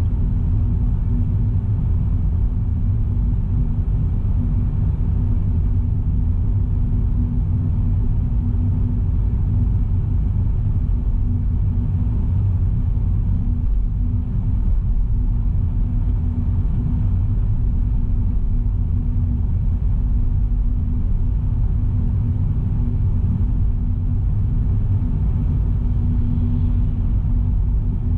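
Car driving at a steady pace: an even low rumble of engine and road noise with a constant hum underneath.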